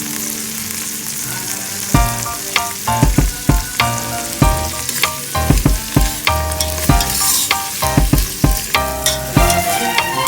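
Food sizzling in a pan while it is stirred, with a cooking utensil knocking and clanking against the pan several times a second from about two seconds in.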